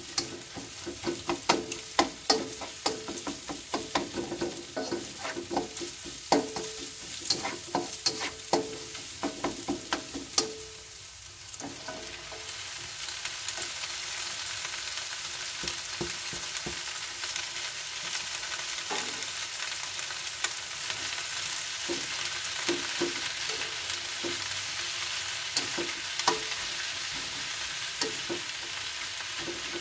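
A spoon stirring and scraping scrambled egg in a non-stick wok, with rapid ringing knocks against the pan for about the first ten seconds. About twelve seconds in, pak choy goes into the hot oil and a steady, louder frying sizzle takes over, with occasional knocks from stirring.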